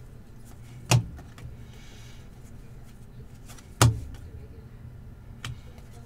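Trading cards being handled and set down on a tabletop: two sharp knocks about one second and four seconds in, and a lighter one near the end. A faint rustle of cards and a steady low hum run underneath.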